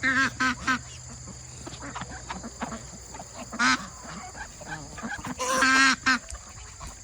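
Domestic ducks quacking: three quick quacks at the start, a single one midway, then a longer drawn-out quack near the end followed by one short one.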